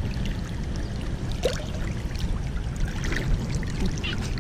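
Creek water running steadily, with a faint trickle and no voices.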